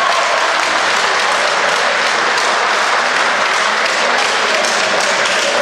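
Crowd applauding steadily at the end of a wrestling bout.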